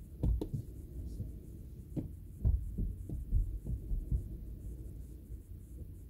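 A string of dull, low knocks and thumps: two near the start, then about seven more over the next two and a half seconds, over a steady low rumble. They die away about halfway through.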